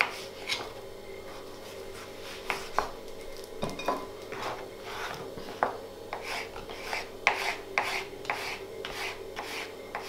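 Small paring knife cutting through courgette and clicking against a plastic cutting board: a few separate cuts at first, then a quicker run of short cutting strokes from about four seconds in as a slice is cut into julienne strips. A steady hum runs underneath.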